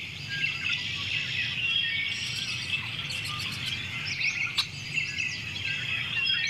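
Many small birds chirping and calling over one another in quick rising and falling notes, with a single sharp click a little past halfway.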